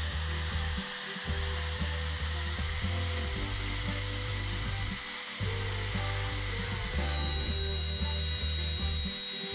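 Trim router running at speed on a router trammel, its bit cutting the edge of a wooden disc into a circle: a steady high whine with a hiss of cutting. Background music with a steady bass pulse plays underneath.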